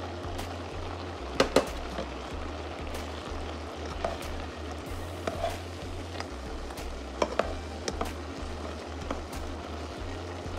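Pot of rice and butter bubbling in water while a slotted spatula stirs it, knocking sharply against the pot twice about one and a half seconds in and a few more times around seven to eight seconds in.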